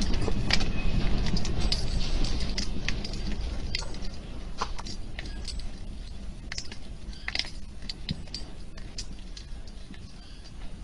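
Car cabin rattling and jingling as an earthquake shakes the parked car: many sharp metallic clicks and clinks over a low rumble, growing gradually quieter as the shaking eases.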